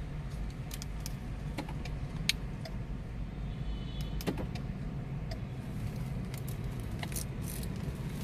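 Car key being handled: scattered sharp clicks and a light jingle as the flip key's metal blade is folded into the remote fob. A steady low hum runs underneath.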